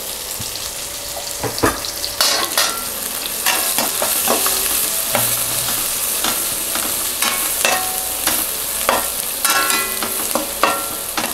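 Sliced onions sizzling steadily in hot oil in a stainless steel pan while being sautéed, with a metal slotted spoon scraping and clinking against the pan again and again as they are stirred.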